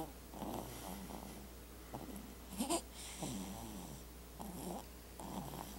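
A sleeping person snoring: a run of short, rough breaths repeating about once a second, with one louder breath a little under halfway through.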